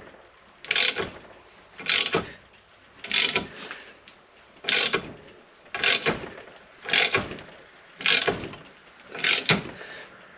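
A ratchet wrench clicks in eight short spells, roughly one a second, as it is swung back and forth. It is turning the forcing screw of a Maddox ball joint press that is pressing a new ball joint in.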